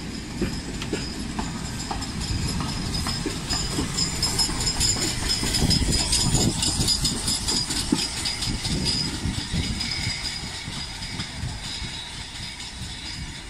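Steam locomotive 45596 Bahamas, an LMS Jubilee class 4-6-0, rolling slowly past with its coaches: wheels clicking over rail joints over a steady rumble. It is loudest about six seconds in as the engine passes close, then fades.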